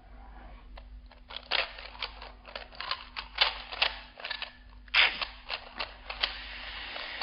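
Plastic clicking and clacking of a MoYu Weilong GTS 3x3 speedcube being turned by hand. Scattered turns at first, then a fast, near-continuous run of turns from about five seconds in.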